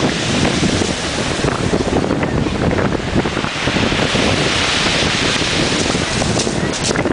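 Strong wind buffeting the microphone with a steady low rumble, over sea surf breaking, whose hiss swells in the middle.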